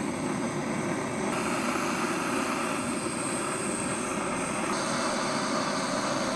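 Gas torch blowing its flame steadily into binchotan charcoal briquettes to light them: a loud, steady rushing hiss whose tone shifts slightly about a second in and again near five seconds.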